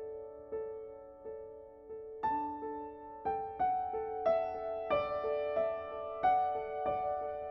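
Soft background music of slow piano notes, each struck and left to fade, the melody rising and growing busier after about two seconds.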